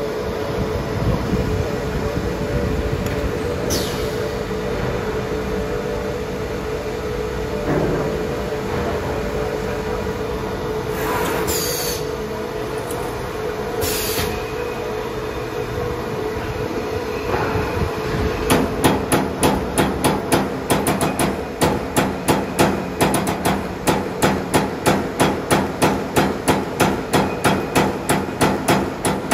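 CNC electric servo turret punch press. A steady machine hum with a few short hisses runs for the first part. From about 18 seconds in, the punch starts striking the metal sheet in a fast, regular series of sharp strikes, about two to three a second.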